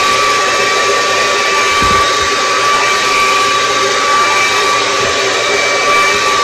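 Handheld hair dryer running steadily while blowing out hair: a continuous rush of air with a steady whine over it.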